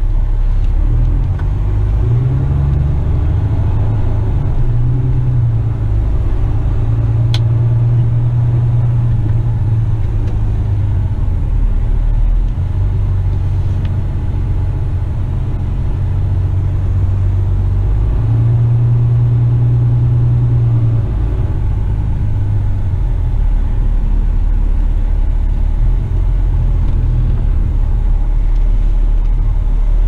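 Western Star dump truck's diesel engine running, a low drone heard from inside the cab as the truck drives slowly, its pitch shifting up and down a little several times. A faint click about seven seconds in.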